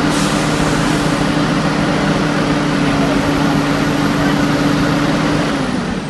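JCB backhoe loader's diesel engine running steadily at raised revs, with a thin high whine above it; near the end the revs ease down and the whine falls with them.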